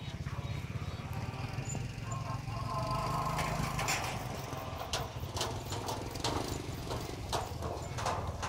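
A small engine running steadily in the background, with scattered clicks and taps over it from about three seconds in.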